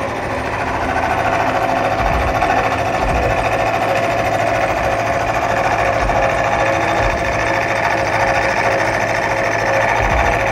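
Vertical milling machine cutting D6 tool steel, the spinning cutter chewing through the steel in a slow finishing pass with a steady, even grinding hum.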